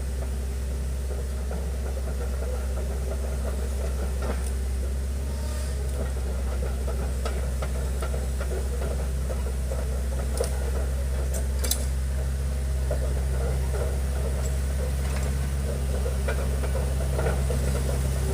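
Excavator's diesel engine running steadily, with scattered light clicks and knocks over it.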